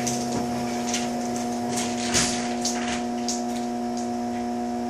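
A steady electrical hum of several fixed tones, with a few light clicks and rustles about two to three seconds in. The amplifier's cooling fan, turned down to low voltage, is still spinning but is too slow to be heard.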